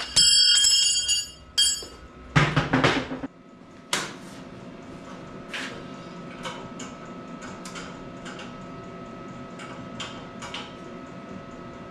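A loud shop tool runs briefly at the start and stops, with a second short loud burst just after two seconds. Then come about half a dozen scattered knocks and clanks over a faint steady hum.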